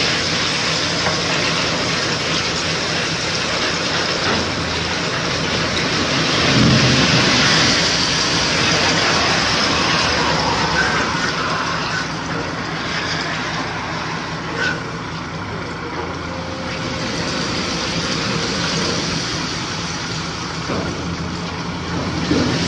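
Dump truck's diesel engine running steadily with its tipper body raised to unload coal, under a continuous rushing noise, with a louder swell about seven seconds in.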